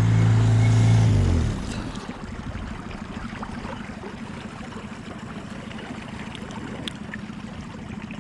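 An engine running at a steady idle, shut off about a second and a half in, dropping in pitch as it winds down; then the quieter sound of water gurgling and lapping.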